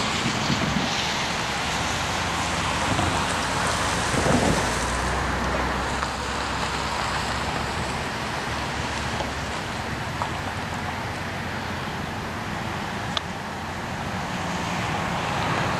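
Steady hiss of rain with some wind rumble on the microphone, and a sharp tick about thirteen seconds in.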